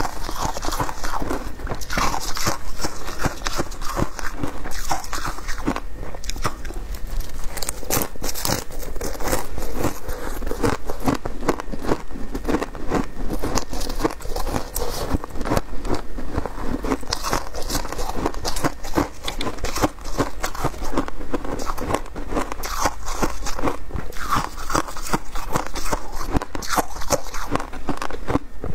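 Shaved ice crunching as it is dug out of a tub by a gloved hand and bitten and chewed, picked up close by a clip-on microphone: a dense, unbroken run of crisp crackles.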